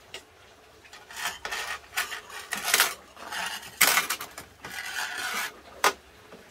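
A pot being scraped and rubbed in a run of irregular strokes, with a sharp clink near the end.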